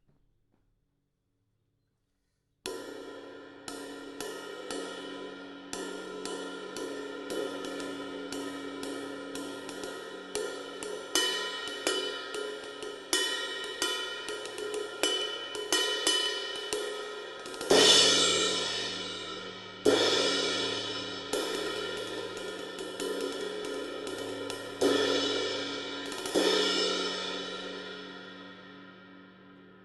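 Zildjian 22-inch Trans Stamp ride cymbal being struck: after a couple of seconds of silence, a run of steady ride strokes builds up a ringing wash. About two-thirds of the way through, a handful of heavier accented hits come in, and the last one rings on and fades out slowly.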